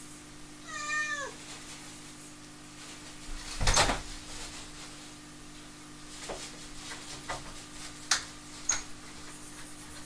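A cat meows once, rising then falling, about a second in. Around four seconds in there is a loud knock and rattle against the wooden door, followed by several sharp taps and clicks as the cat paws at the door.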